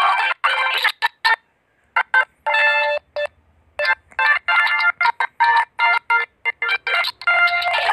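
An electronic, ringtone-like melody of steady tones, chopped into many short bursts that start and stop abruptly with brief silences between them.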